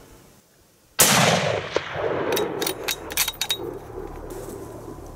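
A single rifle shot about a second in, loud and sudden, its report rolling away over the next two seconds, followed by a few sharp clicks.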